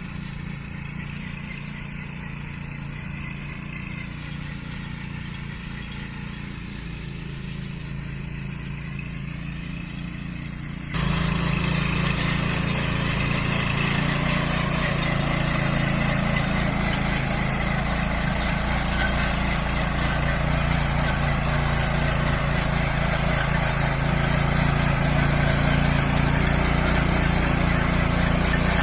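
Walk-behind cultivator's small engine running steadily while tilling soil. About eleven seconds in it becomes suddenly louder and noisier, and stays that way.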